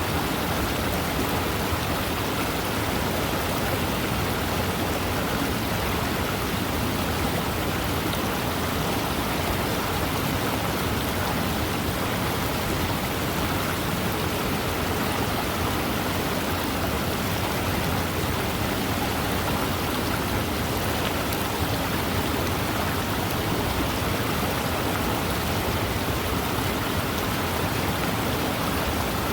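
Waterfall: falling water rushing steadily and evenly, with no change in level.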